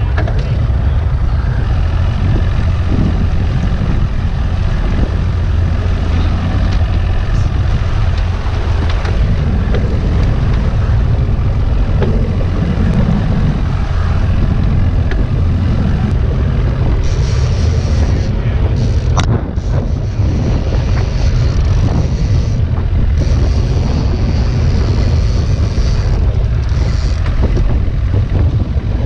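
Steady wind buffeting the microphone over a fishing boat's motor running low and even, with choppy water around the hull.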